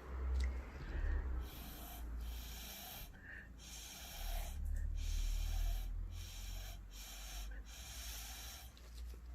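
A person blowing a series of short puffs of air across wet pour paint, each a hissing blast of about a second with breaks between, with air buffeting the microphone.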